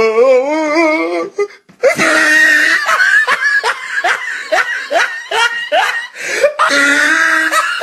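A person laughing hard in quick, repeated ha-ha bursts, about three a second. It is preceded by a wavering, drawn-out vocal sound at the start.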